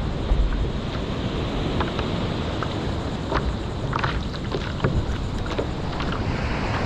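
Seawater rushing and splashing close around a surfer in the surf, with wind buffeting the microphone, a steady low rumble and scattered small splashes and drips.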